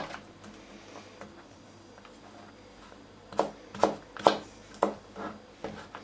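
Kitchen knife slicing a carrot lengthwise into strips on a cutting board. A stroke at the very start, a pause of about three seconds, then a run of about six short cuts, roughly two a second, each knocking the blade onto the board.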